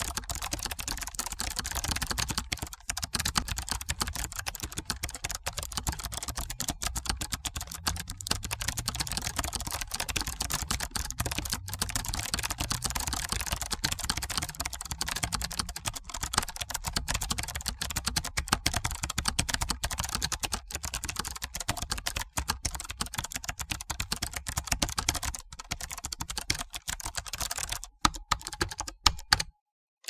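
Computer keyboard typing: a fast, continuous stream of keystroke clicks with a few brief pauses, stopping just before the end.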